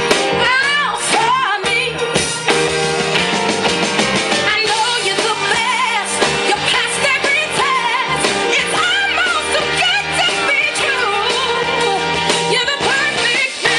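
Pop song with singing and a steady beat, played loud for a dance routine.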